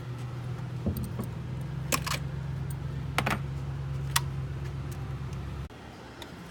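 Scattered sharp clicks and clinks of hands and tools working the intake manifold cover loose on a 3.5L EcoBoost engine, over a steady low hum that cuts off suddenly about a second before the end.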